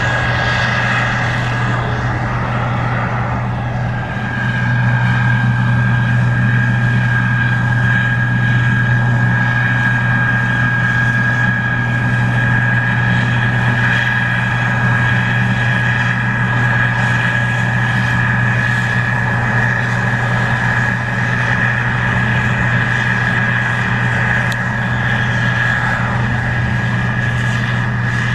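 Case IH 2388 Axial-Flow combine running steadily while harvesting corn: a low engine drone with a steady high-pitched whine on top, growing louder about four seconds in.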